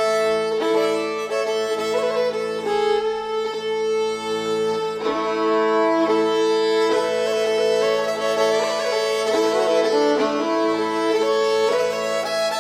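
Background music: a folk tune on a bowed string instrument over a steady drone.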